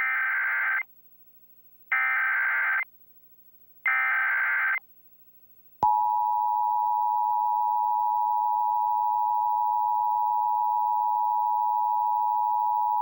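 Emergency Alert System tones: three short bursts of the warbling digital data header, each just under a second long and about two seconds apart, then about six seconds in the steady two-tone EAS attention signal starts and holds, marking the start of an emergency alert broadcast.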